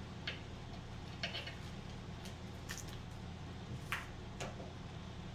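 A handful of faint, scattered clicks and taps from a knife cutting meat sticks on a cutting board and plastic jerky wrappers being handled, over a low steady hum.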